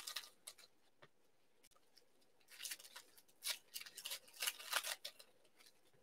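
Foil trading-card pack being opened by hand. Faint, short crinkles of the wrapper start about two and a half seconds in and come in a quick run for a couple of seconds.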